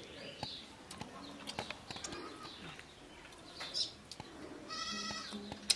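A goat bleats once, briefly, near the end. Before it come small scattered clicks and smacks of rice being mixed by hand on a steel plate and eaten.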